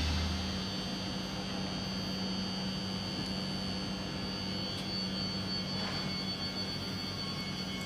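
SNCF Région Normandie double-deck electric train standing at the platform with its electrical equipment running: a steady hum with a high, even whine over it.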